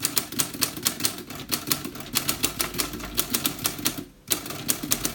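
1937 LC Smith & Corona Standard manual typewriter being typed on: a quick, even run of key strikes, about five a second, with a brief pause about four seconds in.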